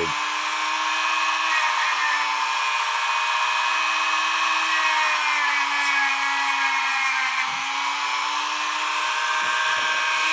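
Dremel rotary tool with a wire brush wheel running steadily against a brass clock gear, a constant high whine with a scratchy brushing hiss. The pitch sags briefly a few times, near the two-thirds mark and again near the end, as the part is pressed into the brush.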